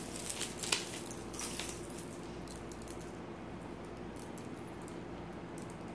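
Beaded necklaces being handled: a few light clicks and rustles in the first two seconds, then quieter handling over a faint steady hum.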